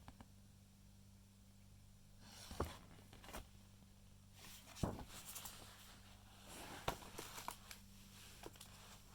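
Paper pages of a printed manual being handled and turned: three soft rustles, each with a light click, about two seconds apart, over a faint steady low hum.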